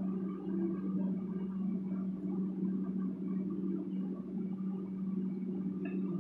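Steady low hum with faint background noise, unchanging throughout.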